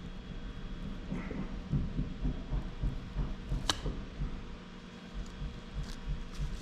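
Small pieces of PLA 3D-print scrap glued with ABS cement being handled and flexed to test the bond, giving low rustling handling noise. One sharp plastic crack comes about three and a half seconds in, and a few faint ticks come near the end.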